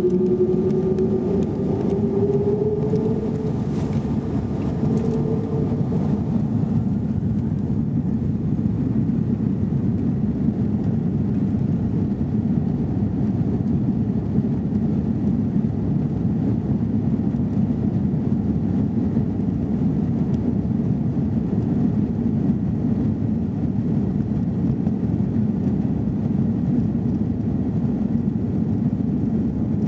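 Cabin noise of an Airbus A330-200 on its takeoff roll. A whine rises in pitch over the first few seconds as the engines spool up, then settles into a steady rumble of engines and wheels on the runway.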